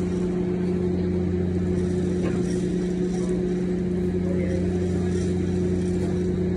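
A ship's engine running steadily, a constant low hum.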